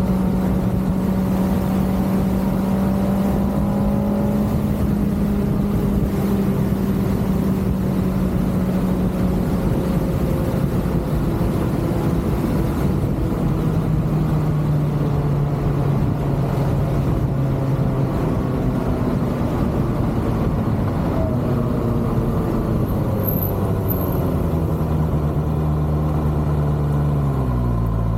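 Kawasaki ZX-6R's inline-four engine running under way with wind noise. Its note holds steady, sits lower from about halfway through, and falls and wavers near the end as the bike slows.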